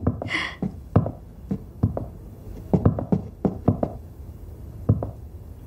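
Footsteps knocking on a wooden floor, about ten uneven steps with some closer together.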